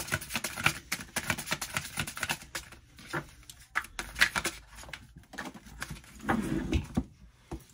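Tarot cards being shuffled by hand, a rapid run of soft card clicks and slaps, then cards laid down on the table. A brief voiced sound comes about six seconds in.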